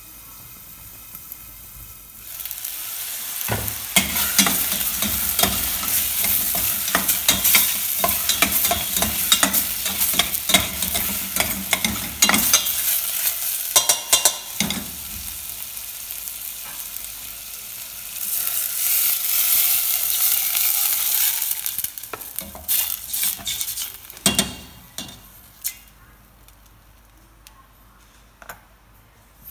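Chicken pieces sizzling and frying in a stainless steel pot, stirred with a metal utensil that clicks and scrapes against the pot. A steadier loud hiss follows, then the sizzling dies away near the end as water is poured in to cover the chicken.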